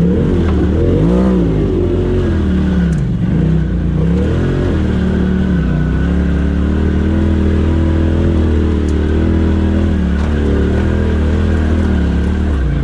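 Engine of a turbocharged Polaris RZR side-by-side, revving up and down as the machine crawls over rough trail. The pitch rises and falls several times, drops low about three seconds in, then holds steadier with smaller swells.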